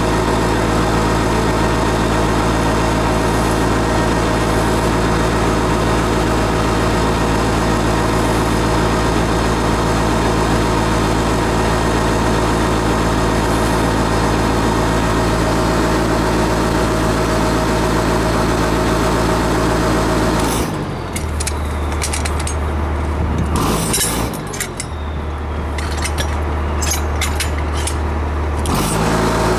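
Engine idling steadily. For several seconds near the end it gives way to a deeper hum with scattered knocks and clatter, then the idle returns.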